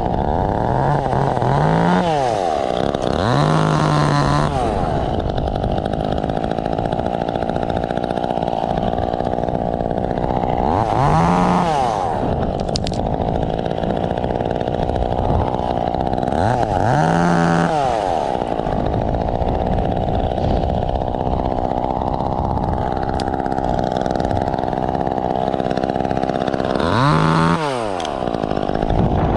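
Two-stroke chainsaw running continuously, its engine pitch dipping and rising several times.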